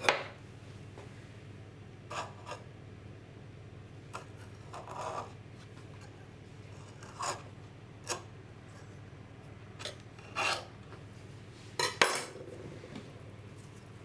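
A metal kitchen utensil scraping and knocking against a cast iron pan, in about ten short, irregular strokes, the loudest at the very start and about 12 seconds in. A faint steady low hum runs underneath.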